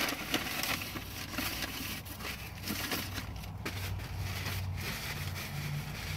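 Lipstick swatches being wiped off the skin of a hand: steady rubbing and scrubbing with light crinkling of a tissue or wipe.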